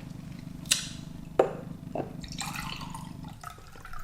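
Someone gulping apple juice: three wet, drop-like swallows about half a second apart, then a softer wet sound, over a steady low hum.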